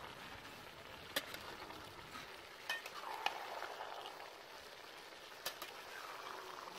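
Fish and vegetable curry sizzling in a large metal pot as a metal ladle stirs it. A few sharp clacks of the ladle against the pot come through the steady sizzle.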